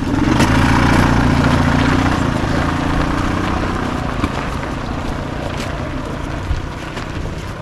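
A motor vehicle's engine running close by, starting loud and then fading steadily over several seconds.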